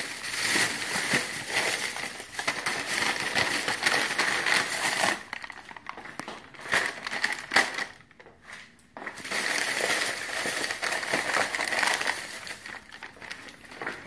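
Plastic grocery bags and plastic-wrapped snack packs rustling and crinkling as groceries are unpacked onto a counter, in irregular stretches with a brief pause just after the middle.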